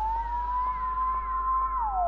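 Electronic synthesizer drone played from a MIDI controller: a steady pitched tone glides back up from a dip, holds, then slides down again near the end. Higher warbling tones arch up and down above it, over a constant low hum.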